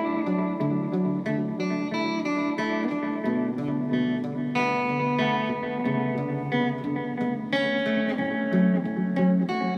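Heraton 345H guitar played through an Echolette E51 tape echo unit, a run of picked single notes and chords with some notes left to ring. The echo unit is under test and not yet fully repaired.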